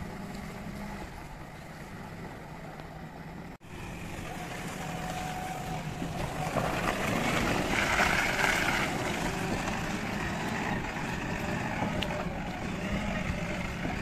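JCB 3DX backhoe loader's diesel engine running with a steady drone, cut off for an instant about three and a half seconds in and getting louder for a couple of seconds near the middle.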